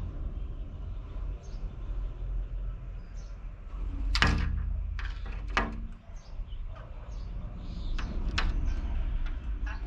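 Wild parrots giving short, harsh calls: about half a dozen, the loudest about four seconds in, over a steady low rumble.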